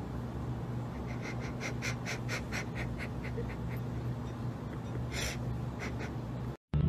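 Soft, breathy human laughter in quick short pulses, about four a second and fading, then a longer breath of laughter a little after five seconds, over a steady low room hum.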